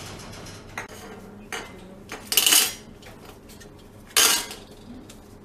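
Metal pestle-like tool clanking and grinding in a small steel bowl as gold dental crowns are crushed to break away the tooth material: a few light knocks, then two loud ringing metallic clanks.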